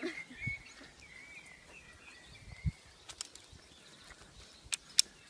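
Birds chirping in the background, with a low thump about halfway through and a few sharp clicks near the end, the last one the loudest.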